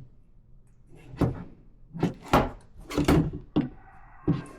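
A series of sharp knocks and clunks as hard plastic parts and batteries of a cordless pole saw kit are handled and set down during unboxing, about six knocks spread over a few seconds.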